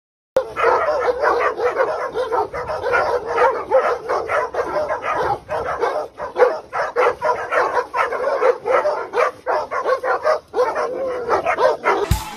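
A dog barking over and over, several short barks a second with hardly a break; it starts about half a second in.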